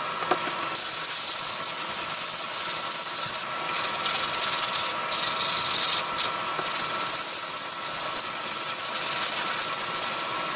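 Hand sanding: sandpaper rubbed back and forth over a primed repair patch on a truck's painted body panel, a steady scratchy hiss that starts about a second in and breaks off briefly a few times.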